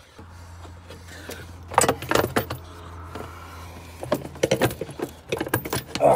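Irregular plastic clicks, knocks and rattles as the stock air intake duct of a 10th-generation Honda Civic is worked back and forth to free it where it is hung up in the engine bay. A low steady hum runs underneath for the first few seconds.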